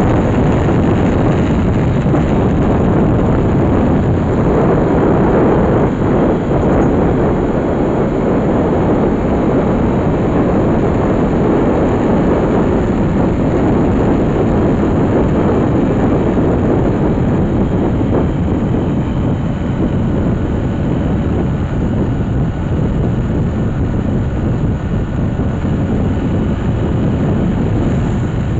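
Steady rumble of a vehicle driving at speed, engine, tyre and wind noise together, heard from inside the vehicle.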